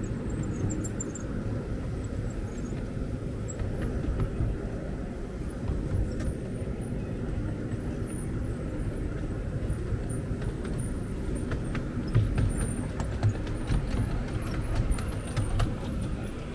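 Miniature railway train running on its track: a steady low rumble, with a run of sharp clicks in the last few seconds.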